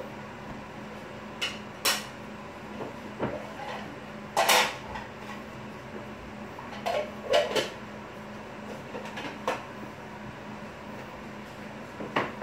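Bread dough being kneaded by hand on a countertop: irregular thuds and slaps as the dough is pushed, folded and turned, over a steady low hum.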